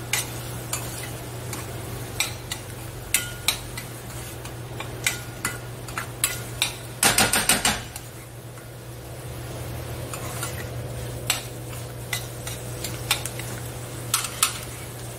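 Metal spoon stirring diced carrots and corn in a stainless steel sauté pan, with scattered clinks against the pan and a quick run of scraping clatter about seven seconds in. A steady low hum runs underneath.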